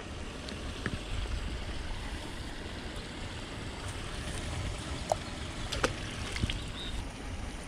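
Steady outdoor wash of a shallow creek's flowing water with a low rumble of wind on the microphone, and a few faint ticks.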